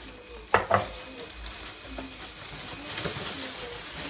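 Tableware clatter: a utensil knocking twice on a dish about half a second in, then lighter scraping over a faint steady hiss.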